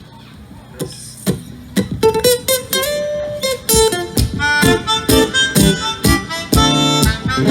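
Live acoustic guitar and harmonica playing a song's instrumental introduction. Guitar strums come in about a second in, and a harmonica melody joins at about two seconds.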